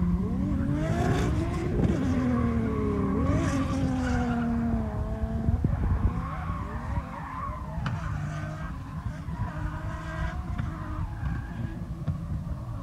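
Drift cars' engines revving hard, their pitch climbing and dropping again and again, with tyres skidding under them. The sound grows fainter over the second half.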